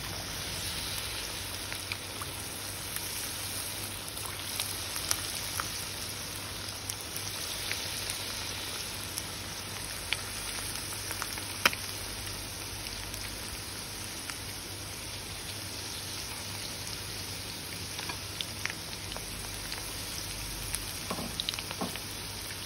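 Batter-coated chicken pieces shallow-frying in hot oil in a pan: a steady sizzling hiss dotted with small crackles and pops, with one sharper crack about halfway through.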